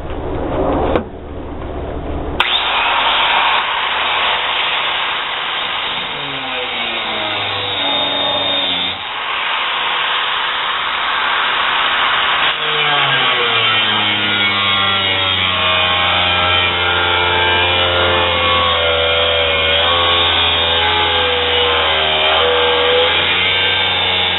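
4-inch angle grinder with a cut-off disc cutting through the steel of an old sawmill saw blade. After a low hum, the disc bites into the steel about two seconds in, and the motor's pitch then wavers up and down under load as the cut goes on.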